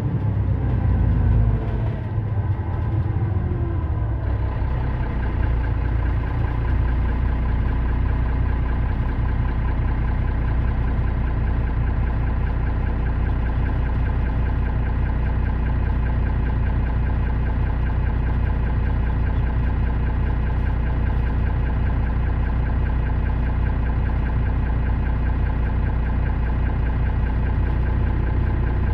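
Mercedes-Benz Citaro O530 city bus engine idling while the bus stands still, a steady low running note. In the first few seconds the note dips slightly and settles, then holds even.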